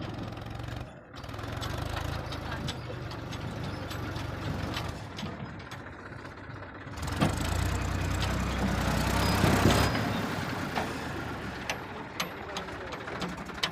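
Diesel engine of a JCB 5DX backhoe loader running while digging and loading. It rises under load for about three seconds midway, then eases back, with sharp clanks near the end.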